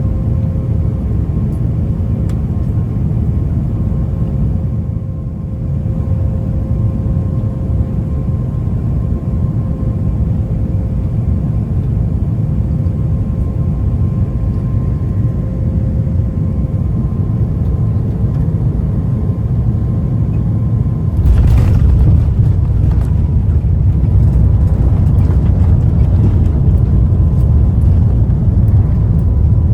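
Airbus A350-900 cabin noise on final approach: a steady rumble with a faint high engine tone. About two-thirds of the way through, a sudden thump, typical of touchdown, and the rumble turns louder and heavier as the aircraft rolls out on the runway.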